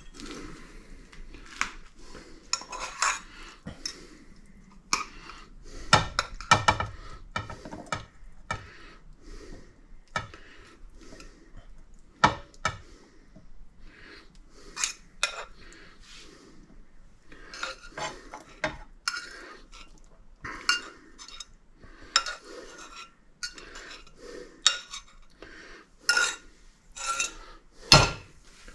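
Metal utensils clinking and scraping against plates and pans as food is dished up and plated, in a run of irregular knocks and scrapes.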